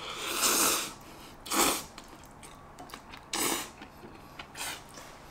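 A person blowing on hot jjajang ramen noodles lifted on chopsticks to cool them: one longer puff of breath, then three short puffs spaced a second or more apart.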